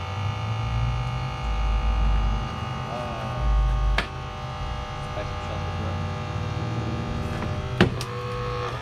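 A motor running steadily with a deep, uneven rumble under it in the first few seconds. A sharp snap comes about four seconds in and a louder one near the end.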